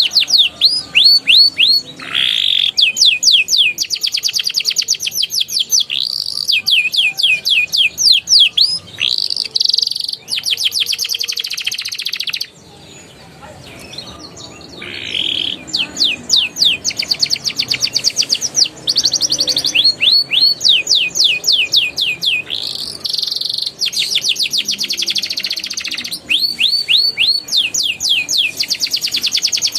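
A young male domestic canary singing in quick tours: rapid trills of repeated falling notes, switching from one phrase to the next. A short lull comes about twelve seconds in before the song picks up again.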